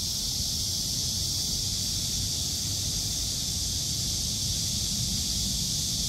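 Cicadas singing in a very loud, steady high-pitched drone that never breaks, with a low rumble underneath.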